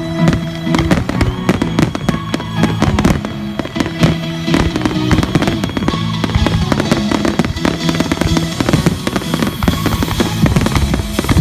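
Fireworks bursting and crackling in quick succession over loud music playing throughout.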